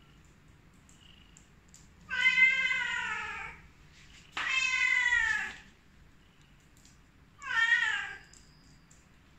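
Domestic cat meowing three times: long, drawn-out calls that fall in pitch, the third one shorter.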